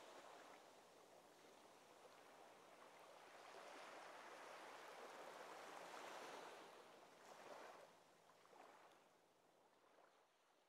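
Faint small waves washing onto a sandy beach, a soft rush that swells and ebbs with a couple of small surges, then fades out to silence near the end.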